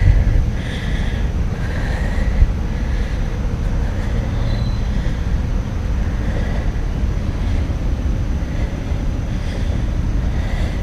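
Steady low rumble of wind buffeting the camera microphone, with a single bump about two and a half seconds in.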